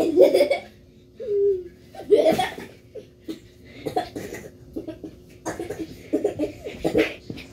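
Children laughing in several choppy bursts, with a longer run of laughter near the end.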